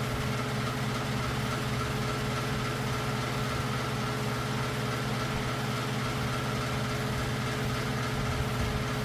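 Steady mechanical hum from a running machine, holding several even tones at a constant level with no change.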